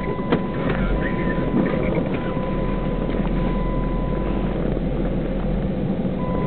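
A steady low engine rumble, with a thin constant high tone running through it that drops out about four and a half seconds in and returns near the end.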